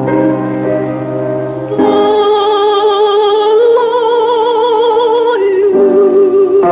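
A woman singing to piano accompaniment. Piano chords come first; then, about two seconds in, she enters on long held notes with a wide vibrato, stepping up in pitch and then back down near the end.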